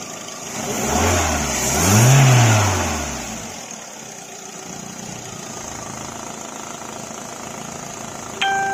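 Skoda car engine revved once, its pitch rising and falling over about two seconds, then settling back to a steady idle. The rev is a coolant-circulation check, and the water from the opened expansion-tank hose stays weak, a sign of a weak water pump or a clogged cooling circuit. A short ringing tone sounds near the end.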